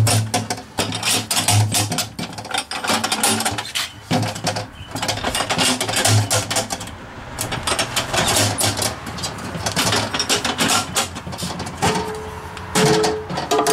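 Irregular clicks, knocks and rattles of a metal ammo box being handled by hand, its lid and latches being worked.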